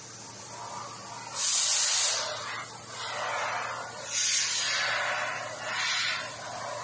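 Fiber laser cutting head cutting sheet metal: the hiss of the assist gas at the nozzle comes in a series of loud bursts, each about a second long, switching on and off as each shape is cut. A faint steady machine hum runs underneath.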